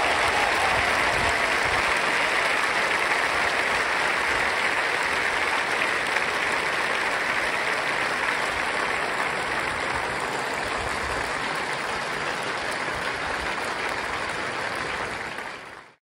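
Large arena audience applauding steadily, easing off slightly over time, then cut off abruptly near the end.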